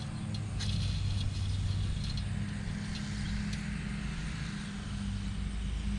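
Small electric cement mixer running steadily: a constant motor hum under the hissing rattle of dry dirt and wax tumbling in the turning drum while the clumps are broken up.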